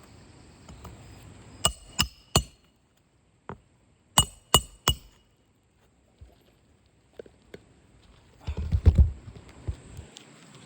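Hammer blows during shingle roof repair: two sets of three quick, ringing metal strikes a couple of seconds apart, followed by a few dull thumps and scuffs near the end.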